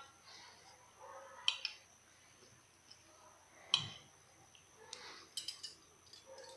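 Golden retriever chewing papaya: a series of wet smacks and clicks of jaws and lips, spaced a second or so apart, the loudest with a dull thump about halfway through.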